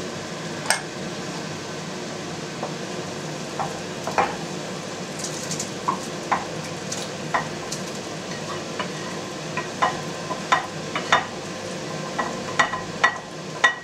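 Wooden spatula scraping and knocking in a frying pan as a thick fried tomato-and-pepper sauce is scraped out into a clay pot of broth: irregular sharp clicks and scrapes over a steady sizzling hiss.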